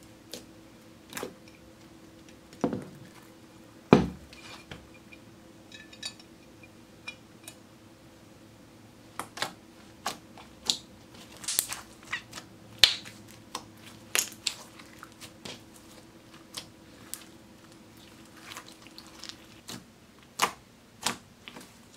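Hands kneading and squeezing glitter slime, making irregular sticky clicks and pops, some louder than others.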